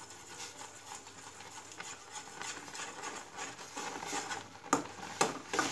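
Fork stirring semolina into hot milk in a stainless steel pan: soft scraping, then three sharper clinks of the fork against the steel near the end.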